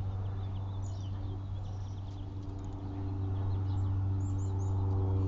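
Small birds chirping in short, high, quick notes over a steady low mechanical hum.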